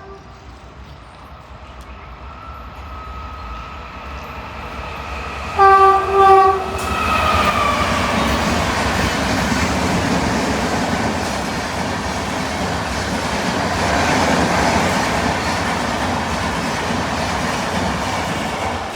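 Indian Railways train approaching and sounding its horn in two short blasts about six seconds in, then passing at speed with a steady loud rumble and wheel clatter.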